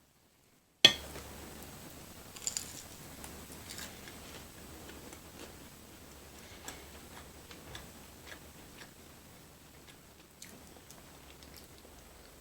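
Close-miked eating sounds: chewing with many small wet clicks and crackles, after a single sharp click about a second in.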